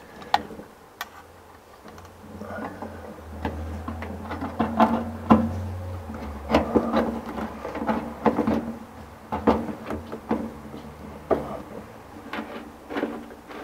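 Irregular clicks, scrapes and small knocks of screwdriver work on metal as a rear-view mirror is screwed to the windshield frame. A low hum runs underneath for a few seconds in the first half.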